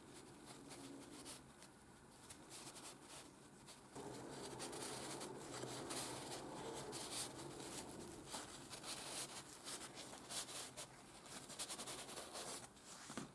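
Paper towel rubbing linseed oil into a wooden tool handle: a faint, scratchy rustling and scuffing that grows louder about four seconds in.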